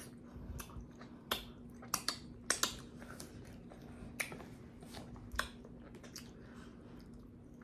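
Close-up mouth smacking and wet clicks of someone chewing hot potato, irregular sharp clicks with several louder smacks.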